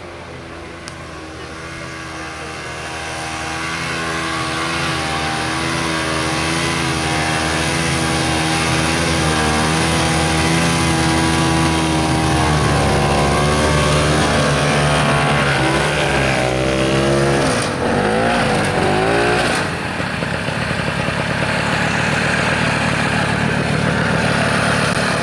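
Old air-cooled snowmobile engine running under load while towing another sled on a rope, growing louder as it approaches. Its pitch wavers, then swoops down and back up about three-quarters through, after which the engine sound turns rougher.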